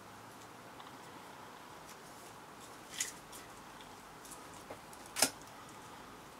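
Filament tape being pulled off the roll and wrapped tight around the end of a fiberglass sword core: faint handling and crinkling, with two short sharp crackles of the tape about three and five seconds in, the second the loudest.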